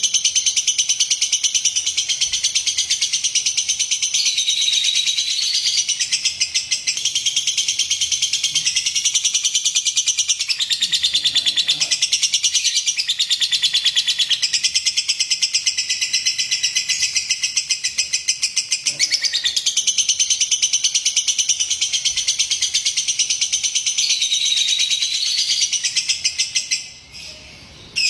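Lovebird singing a long, rapid chattering trill that runs almost without a break, splitting into short bursts near the end. It is a lure song, played to prompt other lovebirds to sing.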